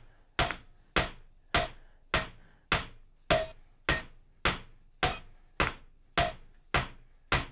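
Flat face of a forging hammer striking a copper bar on a steel anvil: thirteen solid, evenly paced blows, a little under two a second. Each blow rings briefly with a high metallic tone.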